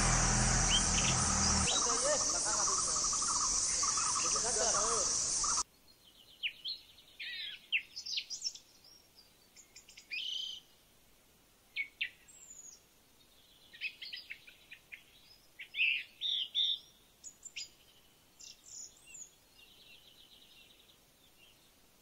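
Loud, pulsing insect drone with a low rumble underneath, cutting off abruptly about five and a half seconds in. After that, scattered bird calls and chirps over quiet forest.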